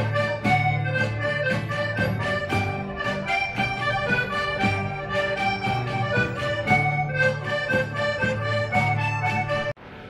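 Traditional Portuguese folk group playing live: a lively tune of held melody notes over strummed guitars and plucked strings, keeping a steady rhythm. The music cuts off abruptly near the end.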